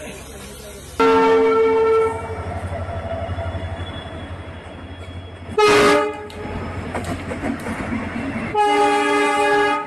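Indian Railways train passing close by, sounding its locomotive horn three times: a blast of about a second starting a second in, a shorter blast a little before halfway, and another of about a second near the end. Between the blasts the wheels and running gear keep up a rhythmic rumble.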